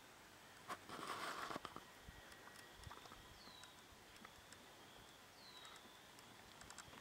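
Near silence in a farmyard, broken about a second in by a short breathy rush of noise, and later by two faint, short, falling bird chirps a couple of seconds apart.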